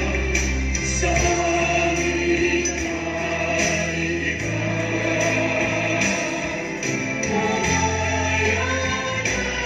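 Christian worship song: choir singing over instrumental backing, with bass notes that change every second or two.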